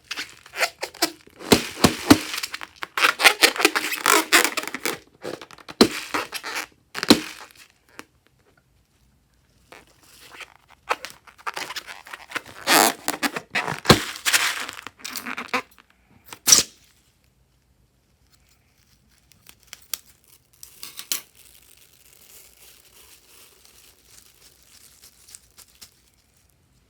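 Fluffy slime being squished and pulled apart by hand, giving wet crackling and tearing sounds in bursts with short pauses. The sounds grow quieter in the last few seconds.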